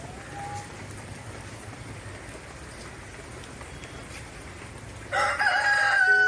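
Steady patter of rain, then a rooster crows once, a long call that starts about five seconds in.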